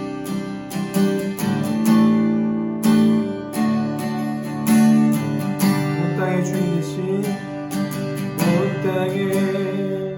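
Acoustic guitar strumming chords: the instrumental introduction to a worship song, just before the singing begins.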